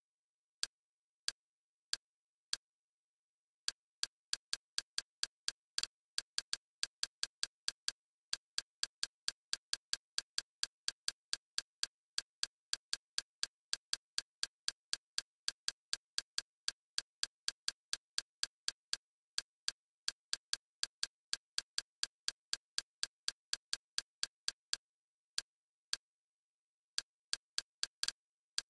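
Kodi menu navigation sound: short, identical clicks, one for each step as the cursor moves down a list. A few come spaced apart at first, then a fast even run of about four a second, thinning out again near the end, with dead silence between them.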